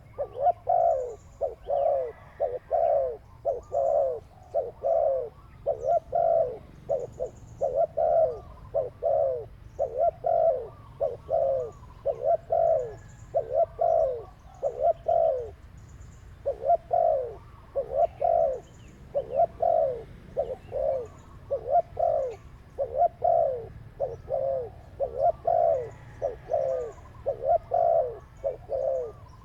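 Dove cooing over and over in short falling coos, about two a second, with a brief pause about halfway through. Faint high chirps of small birds sound above it.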